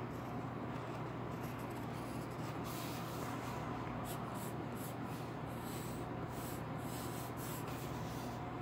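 Graphite pencil scratching across paper in short, irregular strokes as lines are drawn, over a steady low hum.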